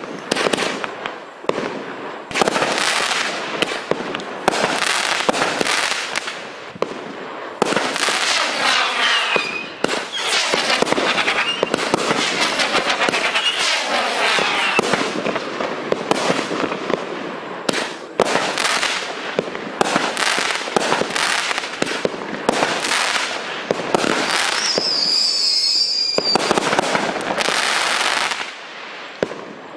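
Miracle Fireworks 'Hooligan' 18-shot fireworks cake firing: a rapid, continuous run of shots and bursts with dense crackling, going on for nearly half a minute. A brief high whistling tone sounds near the end.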